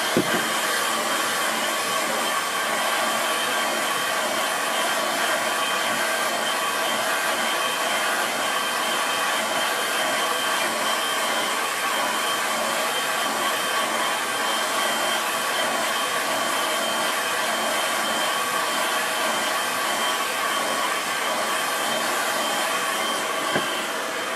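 Handheld hair dryer blowing hot air over a wet watercolour painting to dry the paint: a steady rush of air with an even motor whine.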